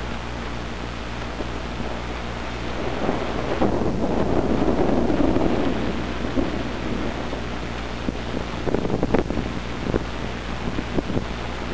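A low rumble that swells and fades over a few seconds, over a steady hiss and low hum, with scattered crackles near the end.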